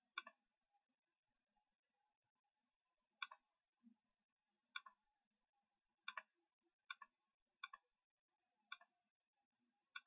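Computer mouse button clicking about eight times at irregular intervals, each click a quick double tick of press and release.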